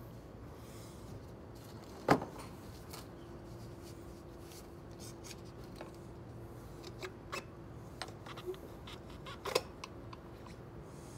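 Scattered metallic clicks and clinks of a ratchet wrench and extension working on a car's rear suspension bolts at the wheel hub, with a louder knock about two seconds in and another near the end. A faint steady hum runs underneath.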